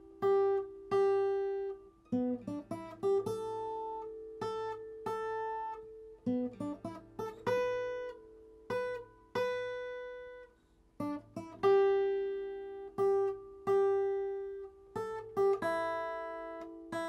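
Acoustic guitar music: single plucked notes and chords, each starting sharply and ringing out as it fades.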